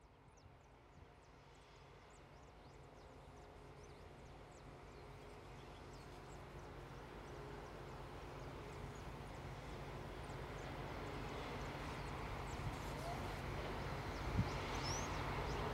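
EMD G22UB diesel-electric locomotive approaching, its diesel engine running with a low hum that grows steadily louder as it comes nearer.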